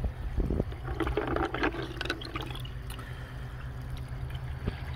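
Degreaser liquid splashing and dripping in a bucket as a wet stone slice is lifted out, mostly between about one and two and a half seconds in, with a knock about half a second in, over a steady low rumble.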